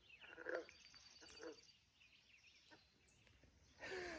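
A faint, high, fast bird trill lasting about a second, over quiet outdoor ambience.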